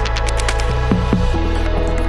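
Electronic background music with heavy bass and a steady drum beat.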